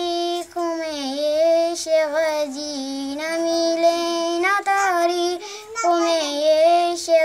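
A girl singing solo, a devotional Urdu song about Husain and Karbala, in long held notes that bend up and down between short breaths.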